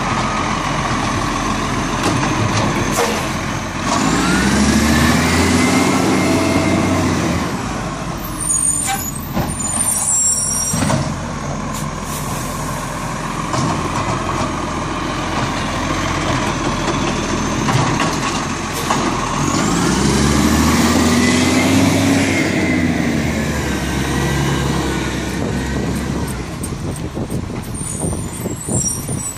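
Side-loading garbage truck with an automated bin-lifting arm, its engine running throughout and twice revving up and settling back down in a long rise and fall. Sharp air-brake hissing comes in between, about 8 to 11 seconds in and again near the end.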